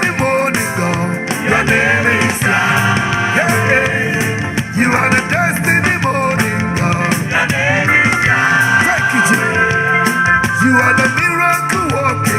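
Live gospel praise song: a band playing, with voices singing.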